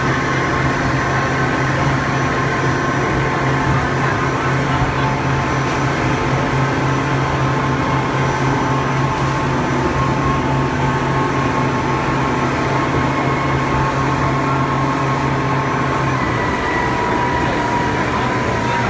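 Boat engine running steadily, heard aboard, with a slight change in its pitch about sixteen seconds in.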